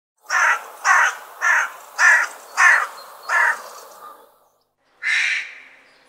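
A crow cawing: six harsh caws in an even series, then a pause and a single caw about five seconds in.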